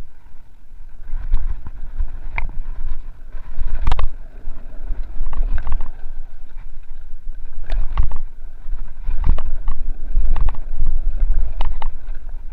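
Mountain bike riding fast down a dirt singletrack: a continuous low rumble of motion and tyres, broken by irregular clattering knocks and rattles as the bike hits bumps.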